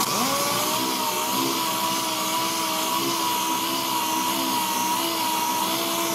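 Air-powered random-orbital palm sander spinning up right at the start, then running with a steady whine as its pad sands the final coat of primer on a car body panel.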